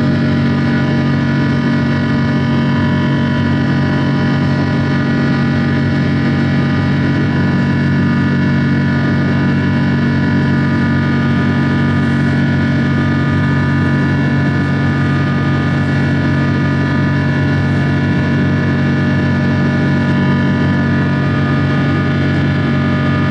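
Cabin noise of a Boeing 777-200ER climbing out after takeoff: the steady drone of its Rolls-Royce Trent 892 turbofan engines, many steady whining tones over a constant rush of air, heard from inside the cabin.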